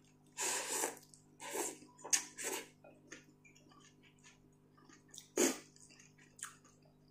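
A person slurping ramen noodles: several short wet slurps in the first three seconds and another, louder slurp about five and a half seconds in, with small chewing and mouth clicks between.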